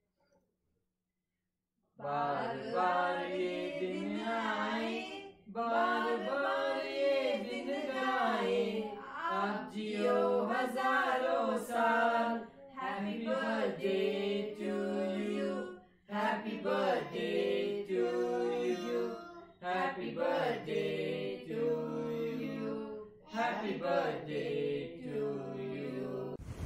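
Voices singing a slow, chant-like melody in phrases a few seconds long, beginning about two seconds in after silence.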